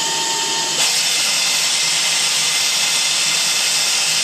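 A 100,000 RPM high-speed fan running at about a quarter of full speed with its plenum off, giving a steady, loud airy hiss. About a second in, a thin steady tone drops out and the hiss turns brighter.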